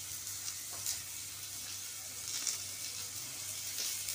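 Faint, steady sizzle of hot oil frying, with scattered soft crackles over a low hum.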